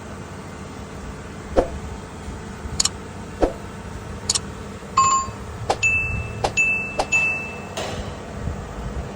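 Hard metal clinks and knocks, about nine over several seconds, several of them leaving a short bright ring like struck steel, over a steady workshop machine hum.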